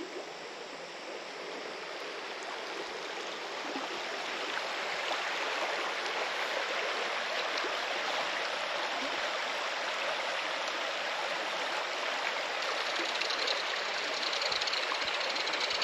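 Steady rush of running water, growing gradually louder over the first few seconds and then holding even.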